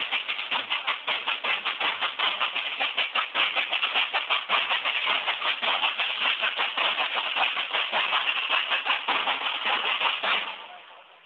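Corps of marching drums in a parade, many drums beaten together in a fast, steady rhythm. The drumming fades away near the end.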